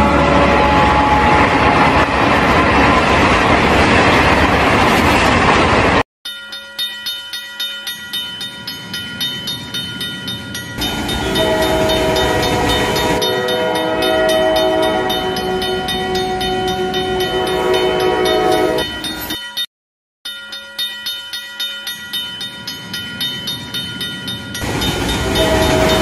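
Cartoon train sound effects cut together: a train running past with horn tones, then after a sudden cut a rhythmic clatter of about three beats a second over steady ringing tones, joined in the middle by a long whistle-like chord. A brief dropout comes before the rhythm resumes, and the heavy train noise builds again near the end.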